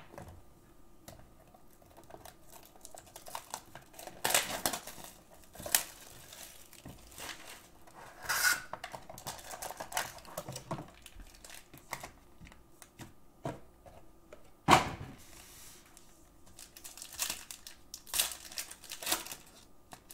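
Hands tearing open a cardboard Panini Revolution trading-card hobby box and pulling out its foil-wrapped packs: scattered tearing, crinkling and light tapping, with one sharp knock about fifteen seconds in.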